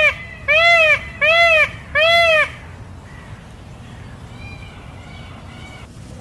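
Indian peafowl (peacock) calling: a run of four loud, wailing calls in quick succession, each rising and then falling in pitch, the first already under way at the start. Fainter calls of the same kind follow a couple of seconds later.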